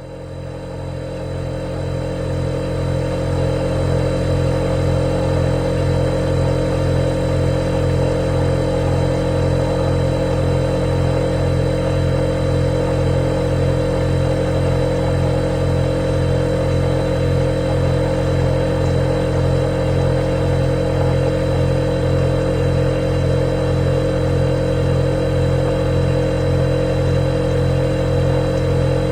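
Refrigerator compressor humming steadily, a low drone with a faint thin high whine over it, fading in over the first few seconds.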